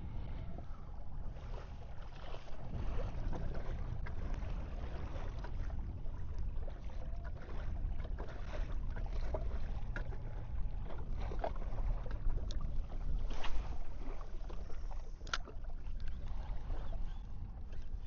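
A kayak moving on the water: a steady low wash of water against the hull, with scattered small knocks and two sharper knocks in the second half.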